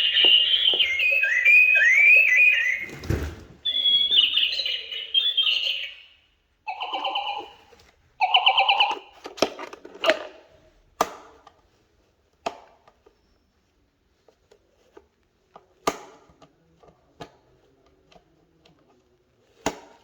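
A broken electronic toy's speaker giving out warbling, chirping electronic tones, broken by a thump about three seconds in. Two short buzzing tones follow, then the second half holds only scattered clicks and knocks.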